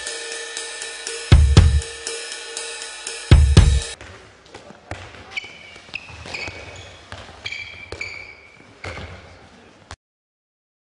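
Music with heavy drum and cymbal hits about every two seconds, which stops about four seconds in. Then the hall's live sound: a handball thudding and sneakers squeaking on the hall floor, cut off suddenly near the end.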